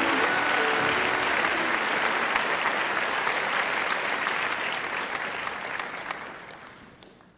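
Applause from a crowd of many hands clapping, fading out over the last two seconds.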